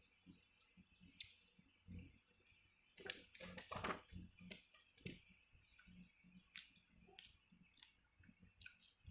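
Near silence broken by scattered faint clicks and taps, busiest about three to four seconds in.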